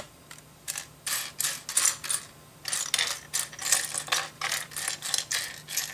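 Loose plastic LEGO pieces clattering and clicking on a tabletop as a hand rummages through a pile of them, in repeated bursts that begin under a second in.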